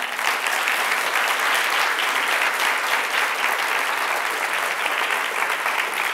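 Conference audience applauding steadily, a dense patter of many people clapping at the end of a talk.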